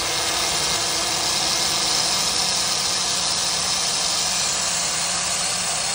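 Compressed air and water blasting out of a semi-truck's air tank drain valve in a steady hiss. The tank is full of water, and the mechanic suspects it has never been drained.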